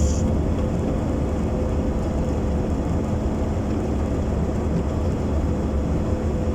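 Car engine and road noise heard from inside the cabin while driving: a steady low rumble with a constant faint hum over it.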